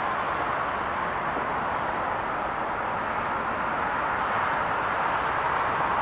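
Steady, even hum of distant city traffic.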